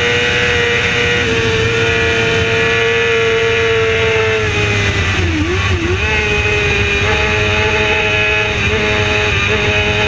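Racing motorcycle's engine heard onboard at high speed, held at high revs with a steady pitch. About halfway through the pitch dips twice in quick succession and recovers, and near the end it wavers briefly a few more times.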